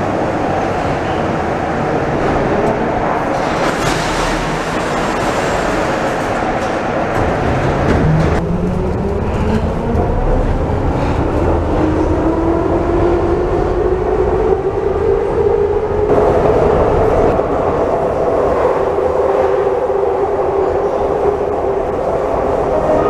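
Ev3 Soviet-built metro train running along the platform, then heard from inside the car as its traction motors whine while it pulls away. The whine rises steadily in pitch from about a third of the way in and then holds, over constant wheel and rail rumble.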